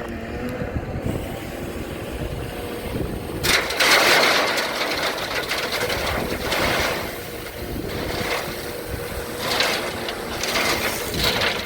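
Kubota BX23S compact tractor's three-cylinder diesel engine running steadily. From about a third of the way in, several louder bursts of hissing, rattling noise come over it.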